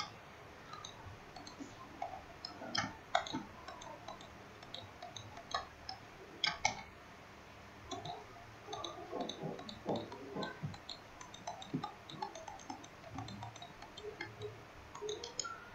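Computer mouse buttons clicking faintly at irregular intervals, each click placing the next point of a curve.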